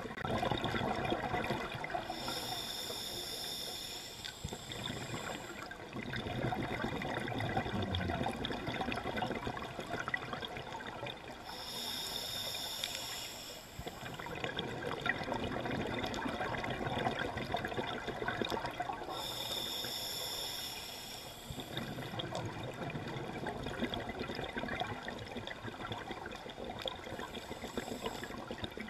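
Scuba diver breathing through a regulator underwater: four short hissing inhalations, roughly one every eight seconds, alternating with longer bubbling exhalations.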